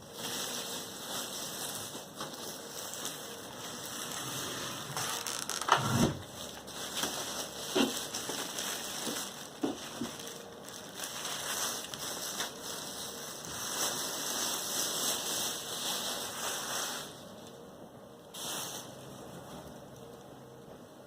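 Packaging being handled while a mid-tower PC case is unboxed: steady rustling and scraping, with a sharp knock about six seconds in and lighter knocks near eight and ten seconds. The handling dies down about seventeen seconds in.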